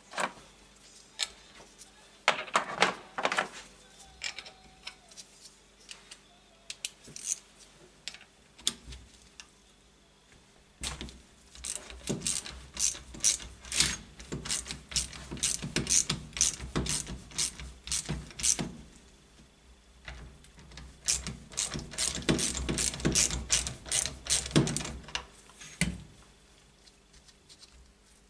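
Hand ratchet clicking as a bolt on a motorcycle footrest bracket is turned, in two long runs of rapid, even clicks, with a few scattered knocks and clicks of metal parts being handled before them.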